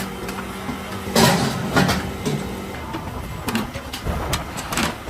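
Factory machinery running with a steady hum, broken by a series of sharp knocks and clatter, the loudest about a second in.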